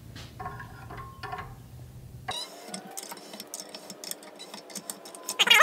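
Light metallic clicks and ticks as the threaded spring preload ring on a mountain-bike coil-over shock is unscrewed by hand, coming thicker from about two seconds in.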